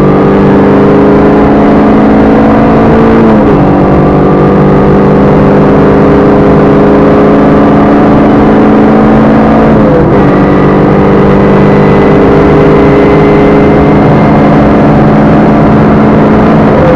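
Rally car engine running hard at high, steady revs, heard from inside the cabin, with road and tyre noise from the gravel surface underneath. The engine note changes abruptly about three and a half and ten seconds in, at gear changes.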